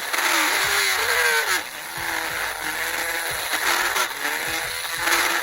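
Small rotary tool spinning a burr bit as it drills and hollows into a plastic action-figure ball peg, its whine wavering up and down in pitch as the load changes.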